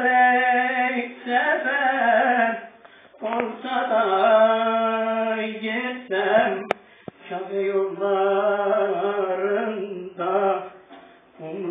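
A man's voice singing an Islamic devotional hymn in long, drawn-out phrases with short breaths between them. One sharp tap is heard a little past the middle.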